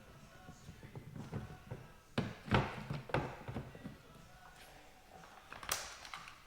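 Knocks, clunks and a sharp click as the outside handle is worked into a 2008-and-up Dodge Grand Caravan's sliding door: a cluster of clunks about two to three and a half seconds in, and a single sharp click near the end.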